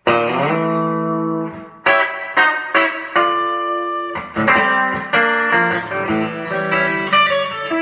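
Electric guitar on its bridge pickup, a mid-1970s Fender Stratocaster with a Texas Special single-coil, played through a 5F4 amp with light compression and reverb. A chord rings for almost two seconds, then a run of picked chords and single notes follows.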